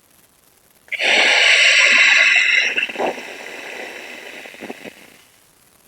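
Ujjayi pranayama breath, air drawn through a slightly contracted throat (glottis) to make the hissing, lightly snoring 'ocean breath' sound. A loud hiss starts about a second in and lasts nearly two seconds, then a softer breath trails off.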